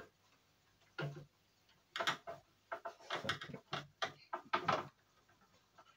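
Irregular series of small clicks and knocks from computer hardware being handled and worked loose during PC disassembly, busiest in the middle of the stretch.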